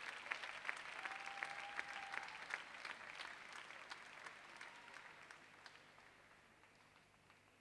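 Scattered audience applause in a large sports hall, the clapping thinning and fading out over about six seconds.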